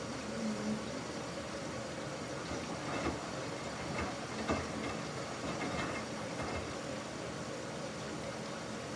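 Samsung washing machine running mid-cycle on a normal cycle: a steady mechanical running noise with a few short, soft knocks around the middle.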